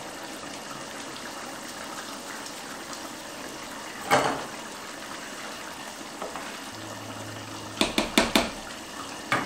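Chicken curry simmering in a wok, a steady bubbling. A single knock comes about four seconds in, and near the end a quick run of four or five clatters as the curry is stirred with a utensil against the wok.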